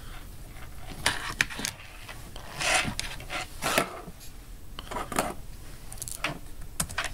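Computer-desk handling noise: scattered light clicks and a few short rubbing or rustling sounds while a mouse is moved and clicked.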